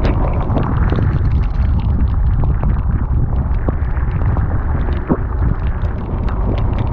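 Outboard-powered boat under way: a steady low rumble, with scattered light clicks of plastic lures and a tackle box being handled.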